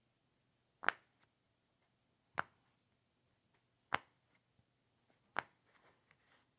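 Unexplained sharp popping noises: four clean pops, evenly spaced about a second and a half apart, with fainter ticks and clicks between them.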